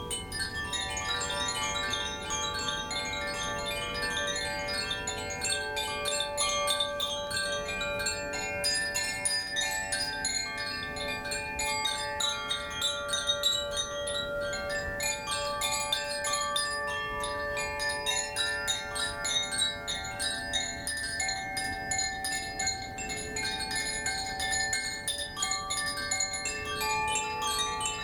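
Koshi chimes being rung continuously, a shimmer of many overlapping bell-like tones that shift and blend, with quick light strikes from the clappers.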